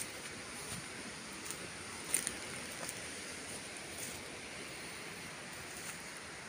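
Footsteps and rustling through dry grass, ferns and leaf litter, with a few crisp crackles, the sharpest about two seconds in, over a steady high-pitched hiss.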